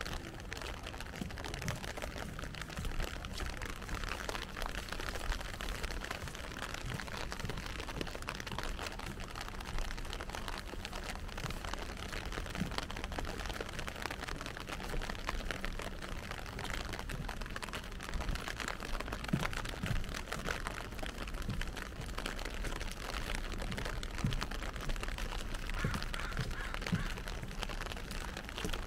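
Steady rain falling, an even hiss thick with small drop ticks, with a few soft low knocks scattered through it.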